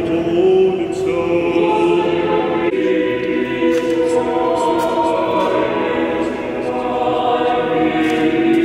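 Orthodox church choir singing a cappella in slow, held chords, the harmony changing about three seconds in.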